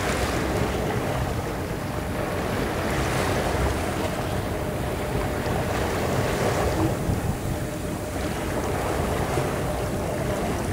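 Wind buffeting the microphone over choppy open sea, with waves lapping and splashing against a small boat. A faint steady hum runs underneath.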